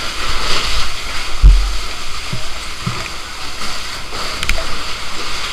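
Fire hose water jet spraying with a steady hiss and splashing onto a flooded concrete floor, with a few dull thumps, the strongest about a second and a half in.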